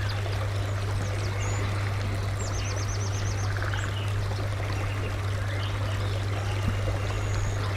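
Steady rush of flowing river water, with small birds chirping over it and one quick trill of about ten rapid notes around three seconds in.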